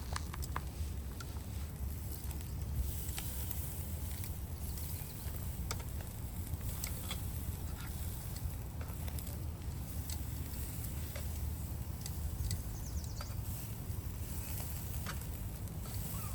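Shashlik grilling over a fire: scattered sharp crackles and pops at irregular intervals over a steady low rumble.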